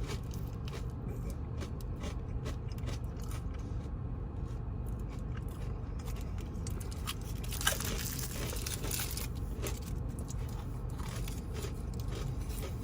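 Crunching and chewing of a crisp fortune cookie, with a louder crunch about eight seconds in, over a steady low hum.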